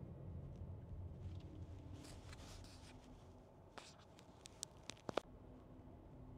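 Quiet cabin of a 2024 Renault Grand Koleos hybrid: faint road rumble dies down in the first couple of seconds, then a brief hiss. A faint low hum runs underneath, and a short cluster of sharp clicks and ticks comes about four to five seconds in.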